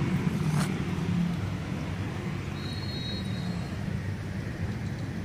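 Steady low rumble of motor-vehicle traffic running nearby.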